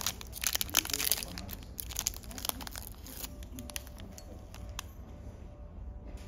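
Crinkling and rustling of snack packaging being handled, with a dense run of crackles over the first three seconds, then only a few light clicks.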